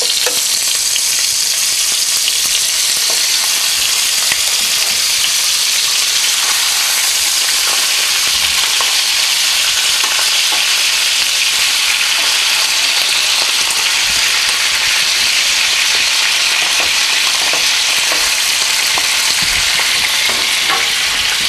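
Chicken pieces browning skin side down in hot olive oil and butter in a skillet, sizzling steadily with a few faint pops.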